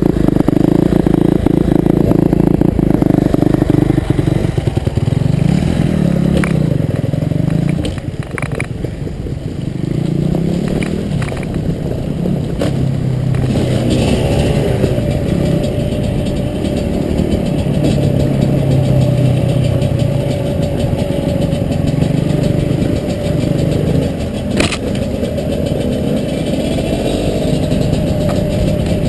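Two-stroke dirt bike engine running under way, its pitch rising and falling as the throttle opens and closes, with a few sharp knocks along the way.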